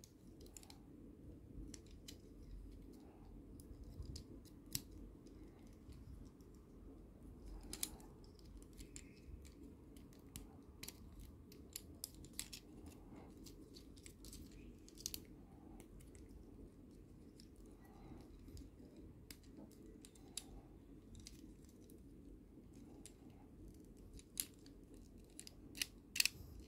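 Small plastic transforming robot toy figure, a Mechanic Studio MS-24 Wreck-Gar, clicking and ticking as its joints and parts are folded and moved by hand: faint irregular clicks, with a few sharper snaps near the end.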